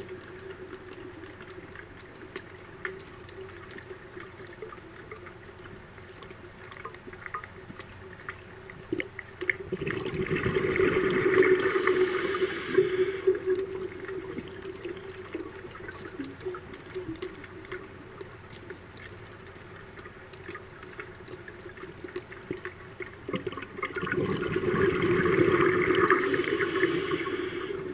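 Scuba diver's exhaled bubbles from the regulator, heard underwater: two bubbling exhalations, about ten seconds in and again near the end, with a steady low hum in between.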